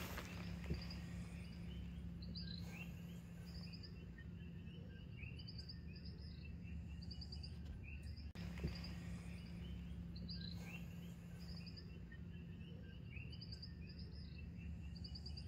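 Faint outdoor chorus of small animals: many short chirps and quick trills repeating over and over, with a steady low hum underneath.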